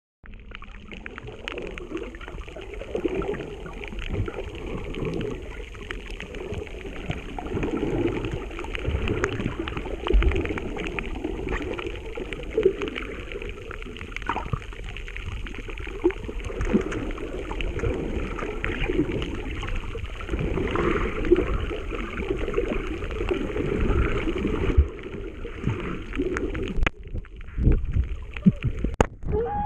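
Underwater sound picked up by a GoPro Session camera: a muffled wash of moving water with scattered crackling clicks. Near the end come a couple of sharp knocks as a Picasso triggerfish strikes the camera.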